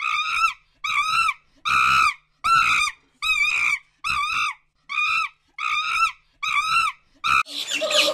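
A monkey calling over and over: a high call that rises and falls in pitch, about ten times, a little more than once a second, with silence between calls.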